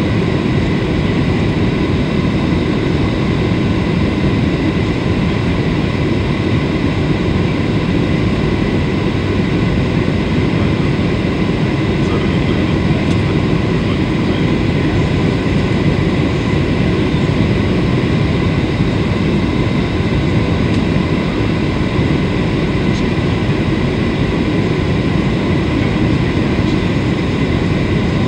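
Cabin noise inside a Boeing 737 descending on approach to land: a steady rumble of the jet engines and rushing air, with a faint steady whine on top.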